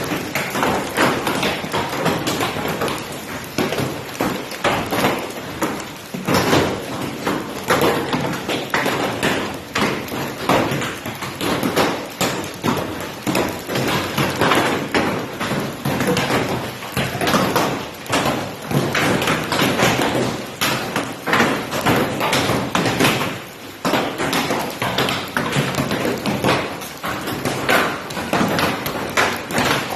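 Heavy hail falling: a continuous dense rain of hailstones hitting hard surfaces, many separate sharp hits every second without a let-up.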